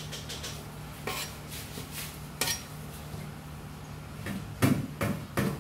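A metal ladle clinking and scraping against a steel wok while stirring simmering soup broth, in a few separate knocks that are loudest and closest together near the end. A steady low hum runs underneath.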